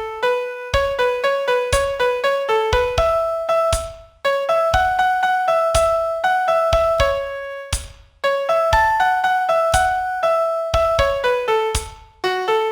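Piano playing a single-line melody of separate struck notes over occasional low bass notes, with brief breaks between phrases about four and eight seconds in.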